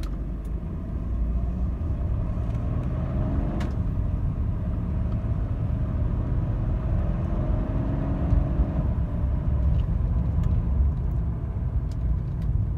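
Mercedes-Benz W124 engine and road rumble as the car accelerates hard from a stop. The sound grows louder over the first second, and the engine note climbs twice as it pulls through the gears. The car runs rough, a fault the owner traced to a failing engine wiring harness.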